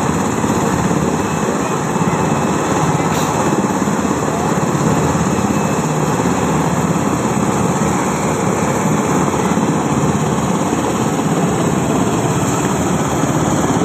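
Military helicopter's engine and rotor running steadily and loudly.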